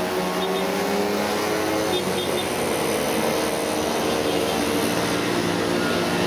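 A procession of 50 cc two-stroke mopeds riding past one after another, several small engines buzzing at once at different pitches.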